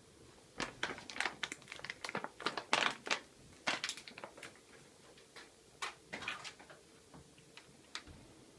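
A cat crunching a small piece of dry food: quick runs of crisp, irregular crunches and clicks, loudest in the first few seconds and thinning out toward the end.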